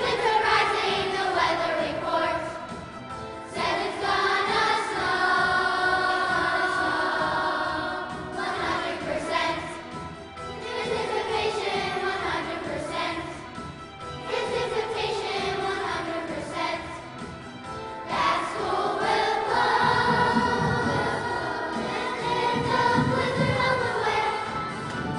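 A children's choir singing a song together, voices holding and gliding between notes.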